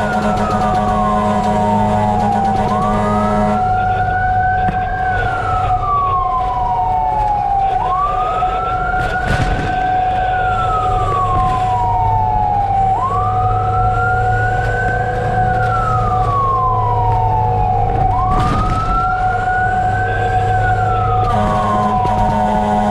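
Fire truck siren wailing: a quick rise and a slower fall in pitch, repeating about every five seconds, over a steady constant tone and the low hum of the truck's engine.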